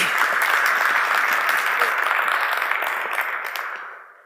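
Audience applauding steadily, then fading out near the end.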